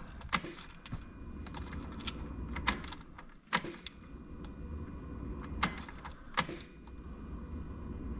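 Miata ignition key being turned on and off repeatedly, several sharp clicks roughly in pairs, to prime a newly installed fuel pump.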